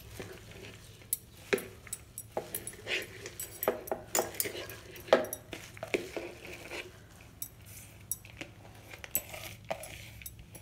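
Handfuls of wet chopped amaranth leaves (arai keerai) being pushed from a plastic bowl into an aluminium pressure cooker. Irregular rustling of the leaves comes with scattered light clicks and knocks against the cooker, the sharpest about halfway through.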